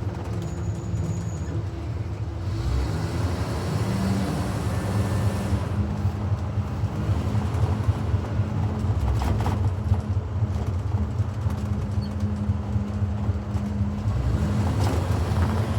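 2019 Blue Bird Vision propane school bus heard from inside while driving: a steady engine drone and road noise. The engine note rises a little about four seconds in, with a few brief rattles later on.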